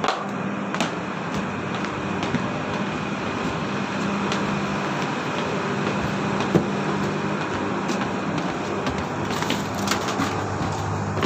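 Steady hum of a boat's onboard machinery with a low drone, and a few faint knocks of footsteps.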